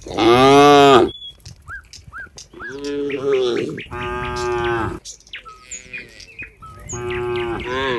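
Cattle mooing: four long calls, the first and loudest rising then falling in pitch, with short high bird chirps in the gaps between them.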